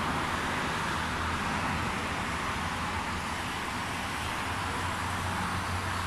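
Steady traffic noise from cars on a busy multi-lane highway: a continuous, even wash of tyres and engines with no single vehicle standing out.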